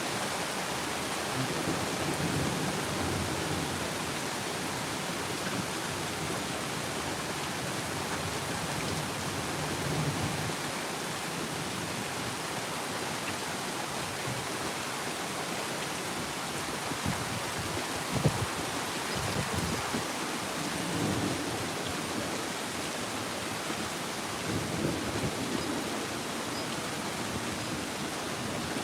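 Steady rain falling, with thunder rumbling low several times and one sharper crack about two-thirds of the way through.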